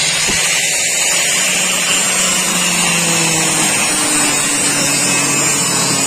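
Handheld angle grinder with a cutting disc running steadily with a constant whine as it cuts through a seized metal screw in a washing machine's plastic body, throwing sparks.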